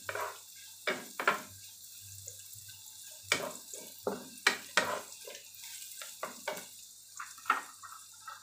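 Wooden spatula scraping and knocking against a nonstick wok, about a dozen irregular strokes, while dried shrimp, dried radish and garlic sizzle in hot oil with a steady hiss.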